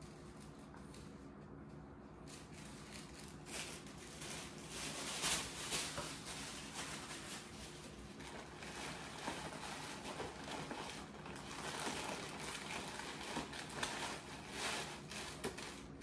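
Paper gift bag and tissue paper rustling and crinkling as they are handled, in irregular bursts from about three or four seconds in, over a faint steady hum.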